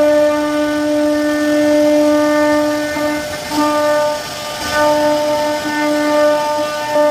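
CNC router spindle carving a wooden panel: a steady, high-pitched whine that holds one pitch, with short breaks and dips in level as the bit bites into the wood.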